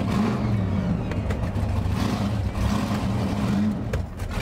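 Supercharged 454 big-block Chevy V8 (7.5 litres, 6-71 blower) running just after start-up, its low note rising and falling a little with light throttle.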